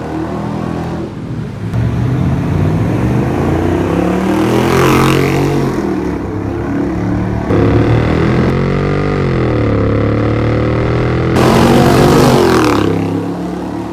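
2005 Mercedes-Benz G500's V8 through a true dual catback exhaust with dual downpipes, revving up and down as it accelerates past. It is loudest on two close passes, about five seconds in and again near the end.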